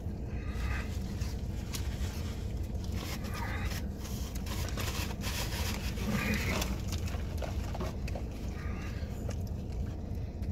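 Close-up chewing and mouth sounds of someone eating a sandwich, with scattered clicks and rustles, over a steady low hum.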